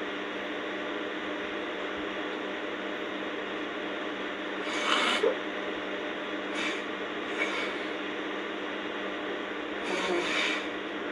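A girl snoring in her sleep: rasping breaths that come about every five seconds, the loudest about five and ten seconds in, over a steady hiss.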